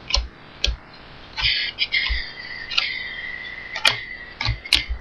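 Glossy chromium trading cards being handled and set down one by one while being counted: a series of sharp taps, with a thin, high, squeak-like sound through the middle.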